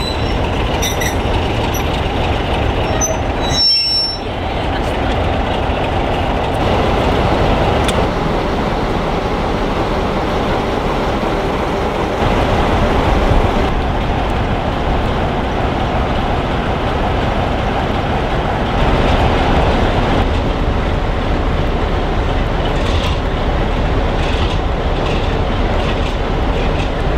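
Sulzer-engined diesel locomotives, a Class 33 and a Class 47, idling side by side with a steady, heavy rumble. Before a cut about four seconds in, a passenger train moves along the platform with wheel noise.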